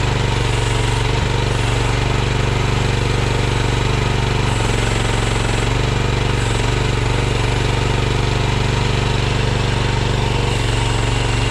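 Chinese mini excavator's small gasoline engine running steadily, its note shifting briefly a few times.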